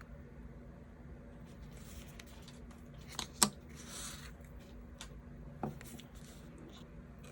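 Masking tape and paper being handled: soft rustles, with a sharp click about three and a half seconds in and a smaller one about two seconds later.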